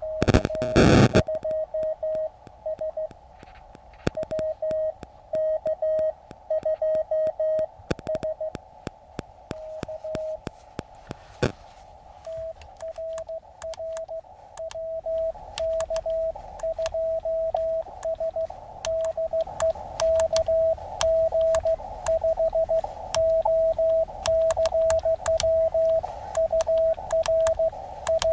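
Morse code (CW) from a ham radio transceiver, likely an Elecraft KX2: a single tone near 600 Hz keyed on and off over receiver hiss and scattered clicks. The keying is sparse for the first ten seconds or so, then turns faster and louder from about twelve seconds in. A brief loud noise fills the first second.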